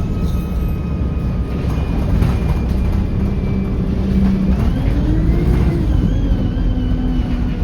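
Diesel engine of vehicle 36749 heard from on board while under way, a steady low rumble with an engine note that drops near the start, then climbs and falls back again about five seconds in as it pulls away and shifts.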